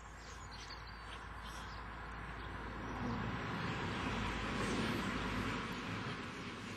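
Rushing noise of a passing vehicle, swelling to its loudest about four to five seconds in and then fading.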